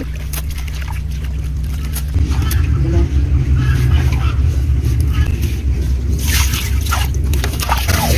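Water sloshing and splashing in metal basins as frogs are rubbed and rinsed by hand, with water poured from a plastic bucket near the end. A steady low rumble runs underneath and gets louder about two seconds in.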